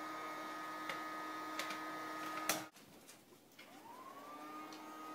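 Toy vacuum cleaner's small motor running with a steady whir and a few light plastic clicks. It cuts off abruptly about two and a half seconds in, then winds back up, rising in pitch, and runs steady again.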